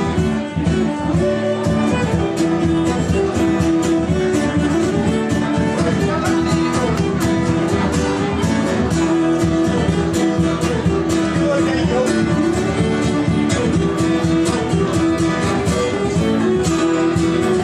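Live folk trio playing a Scottish dance tune: fiddle melody over acoustic guitar, with a steady beat on a bodhrán frame drum.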